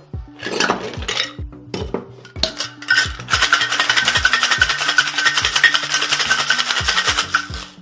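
Ice clattering into a copper cocktail shaker tin. Then the tins are sealed and shaken hard, ice rattling fast and evenly inside for about four seconds before stopping.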